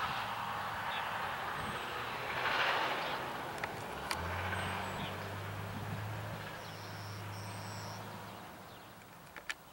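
Distant motor vehicle running: a broad rushing noise that slowly fades, with a low engine hum for a few seconds midway and a few sharp clicks.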